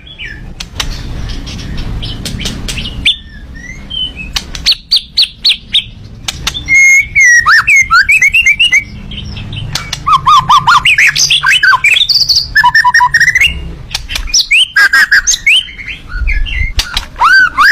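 Small songbird, billed as a miwah, singing in rapid bursts: fast runs of chirps, swooping whistled notes and sharp clicking notes, a few seconds each with short pauses between, the kind of 'tembakan' song used as a masteran for training other songbirds.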